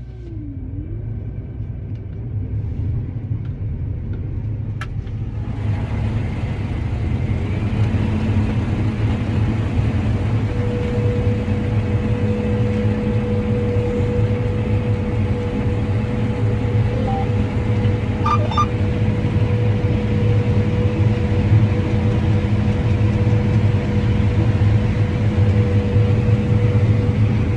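Combine harvester running during corn harvest, a steady low rumble that builds up louder over the first several seconds; a steady whine joins in about ten seconds in.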